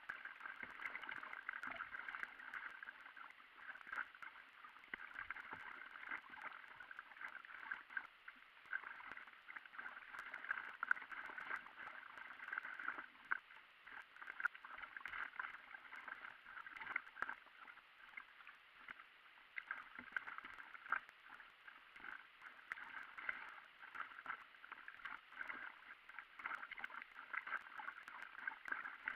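Water gurgling and splashing against the bow of an inflatable stand-up paddleboard as it is paddled along a river, with paddle-stroke splashes. Sped up eight times, it runs as a dense, rapid patter.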